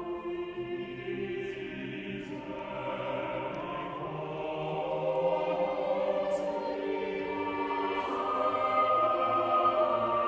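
A choir singing in harmony, several voice parts holding long sustained notes that change pitch slowly, growing louder in the second half.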